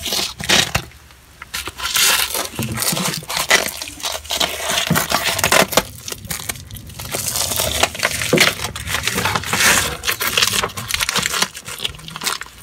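Rubber-gloved hands rubbing and pressing a self-adhesive patch onto a cast iron drain pipe: an irregular run of close-up crinkling and scuffing noises.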